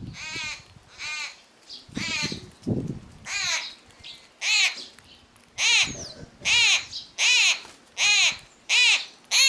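A young bird begging for food with a run of short, repeated crying calls, each rising then falling in pitch, growing louder and more regular from about the middle, roughly one call every 0.7 s. Some low rumbles are mixed in during the first few seconds.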